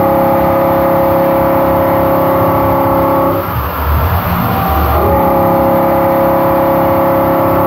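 Harvi III end mill on a Makino A81NX horizontal machining center cutting 6Al-4V titanium at about 2000 RPM: a steady, pitched hum of the cutter in the cut. About three and a half seconds in, the tone gives way to a rougher noise for a second or so, then the steady hum returns.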